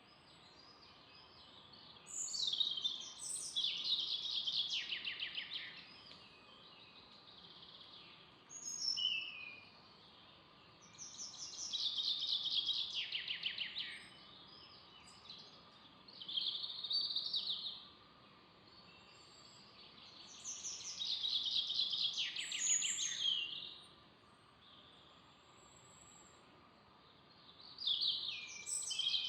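A songbird singing a repeated phrase about six times, each a rapid trill that starts high and falls in pitch, over a steady hiss.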